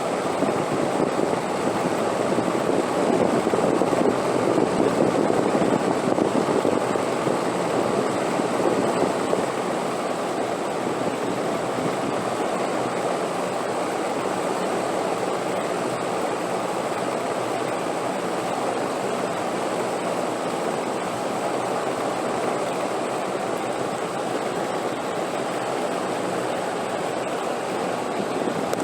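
Wind blowing as a steady rushing noise, a little stronger a few seconds in, then even.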